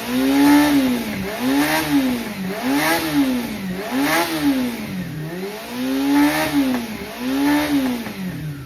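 Honda CBR400F's air-cooled inline-four engine being revved repeatedly, the pitch rising and falling about once a second as the throttle is blipped and released. The seller describes it as running well, with no abnormal noise.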